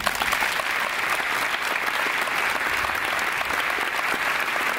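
A large audience applauding, a steady dense clapping throughout.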